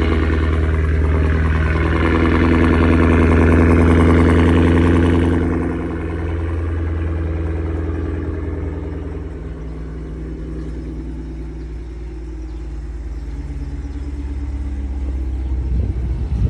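A 2023 Cadillac Escalade-V's supercharged 6.2-litre V8 idling after a cold start. It runs at a high, loud fast idle, then steps down to a lower, quieter idle about five and a half seconds in, and settles a little further around nine or ten seconds in as the engine warms.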